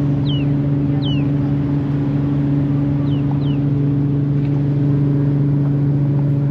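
Ferry's engine running with a steady low drone. A few faint, short falling chirps from boxed chickens come through in the first few seconds.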